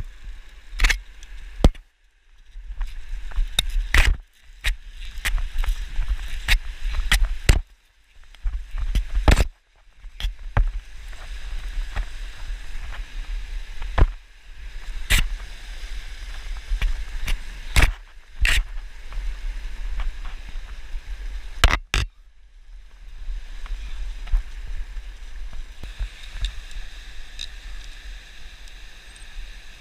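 Close handling noise of clothing and a backpack rubbing against the camera, with many irregular sharp clicks and knocks from buckles and climbing gear, over a steady low rumble on the microphone.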